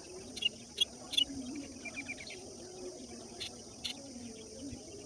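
Morning birdsong: short sharp bird chirps, a few in quick succession and then two more later, with a brief trill between them. Under them is a steady high insect drone and a soft, wavering low call.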